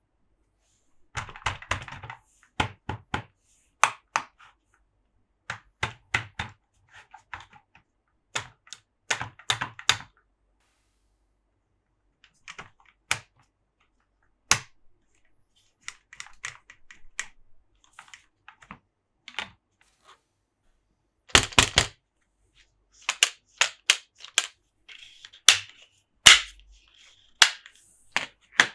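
Hands tapping and handling plastic Monster Jam toy trucks and playset pieces: sharp clicks and small knocks in irregular clusters, some with a dull thud, with a couple of short pauses.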